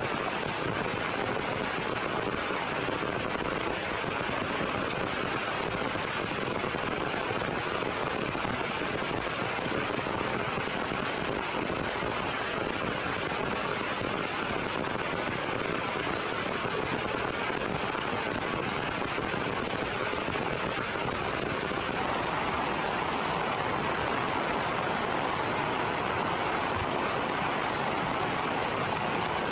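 Heavy rain pouring steadily on forest leaves and branches, a dense even hiss that swells a little about two-thirds of the way through.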